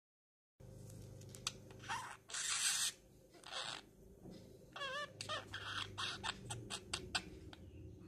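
Budgerigar chattering quietly to herself: a string of soft clicks and scratchy, hissy sounds, with a brief wavering warble about five seconds in.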